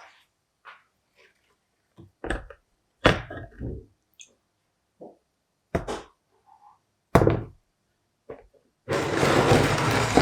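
A series of sharp knocks and thunks, as of metal parts or tools being struck or set down, six or so spaced out at irregular intervals. Near the end comes a loud, harsh rush of noise lasting nearly two seconds.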